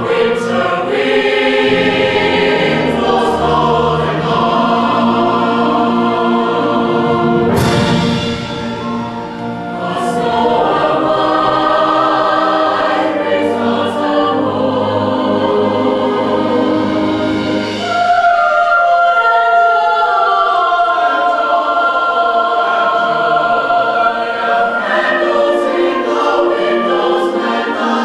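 A high school band playing a slow piece in long, held chords. About two thirds of the way through, the low parts drop out and higher held notes carry on.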